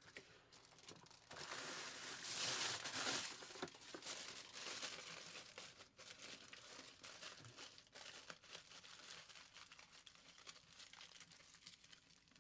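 Aluminum foil crinkling as a sheet is handled, loudest about two to three seconds in, then crumpled and pressed by hand around a foil ball in a run of small crackles.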